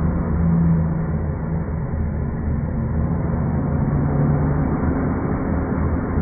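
Wind howling through a tunnel: a steady deep rumble with a low howling tone that swells and fades, strongest about half a second in and again around four seconds in.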